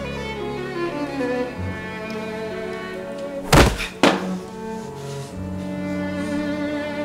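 Bowed-string background music with long held notes, broken near the middle by two loud thumps about half a second apart.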